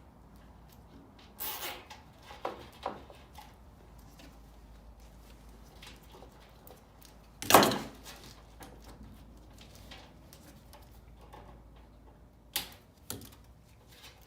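Hands working on a blower motor's wiring and parts: scattered rustles and clicks, one loud knock about seven and a half seconds in, and two sharp clicks near the end.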